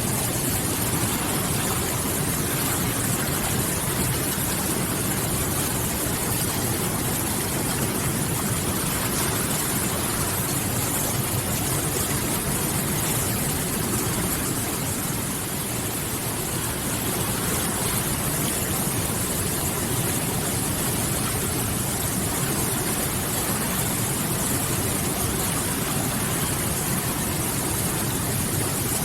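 River water rushing and splashing, a steady, even hiss with no breaks.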